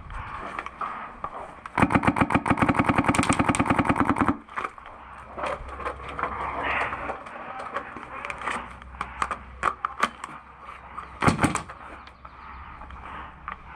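Airsoft gun firing a rapid full-auto burst of about two and a half seconds, a couple of seconds in, followed by scattered single shots and one loud shot near the end.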